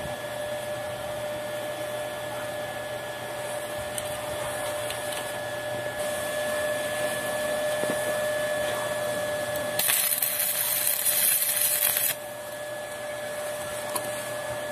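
Stick-welding arc striking on steel: a steady machine hum, then about ten seconds in a loud crackling hiss for about two seconds that cuts off suddenly as the arc breaks.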